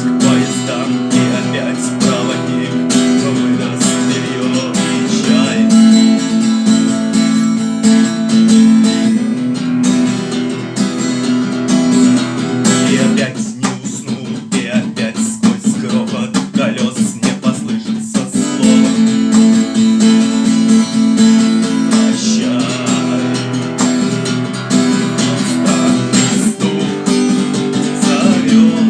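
Acoustic guitar strummed in a steady rhythm, thinning to a sparser, quieter passage about halfway through before the full strumming returns.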